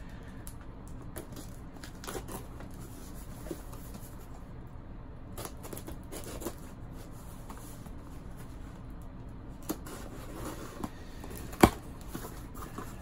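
A cardboard package being opened by hand: tape tearing and cardboard and packing rustling, with scattered small clicks and one sharp knock near the end.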